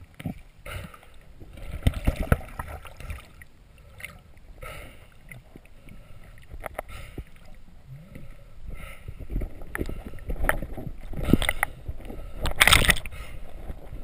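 Muffled water sloshing with irregular knocks and clicks, heard through an underwater camera, as a speared fish on a metal spear shaft is handled and threaded onto a stringer. A louder rushing burst comes near the end.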